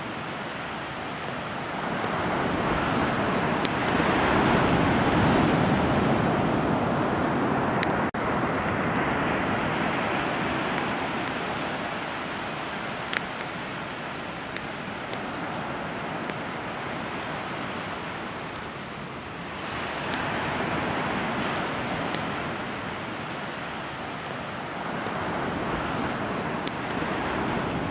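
Rushing noise of water and wind, swelling and easing over several seconds at a time, with a few faint clicks.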